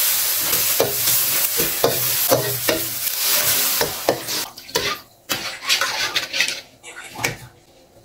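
Ground chili paste sizzling in hot oil in a wok while a metal spatula scrapes and stirs it. About four seconds in the sizzling dies down once coconut milk is in the pan, leaving separate scrapes and taps of the spatula against the wok.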